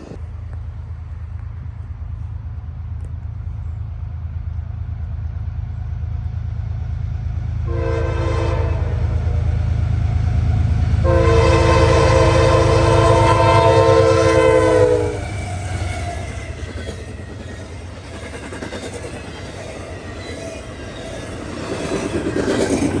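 Diesel train locomotive running past with a steady low engine rumble, sounding its multi-note horn: a short blast about eight seconds in, then a long loud blast that cuts off about fifteen seconds in.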